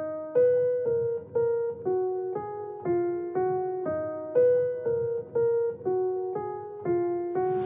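Background music: a keyboard melody in a piano or electric-piano tone, one note about every half second at a steady tempo.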